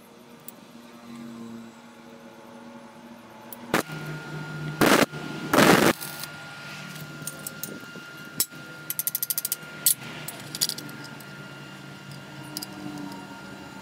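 Small metalworking on iron parts: a sharp click, two short loud noisy bursts, then scattered clicks and taps, including a quick rattle of about ten clicks.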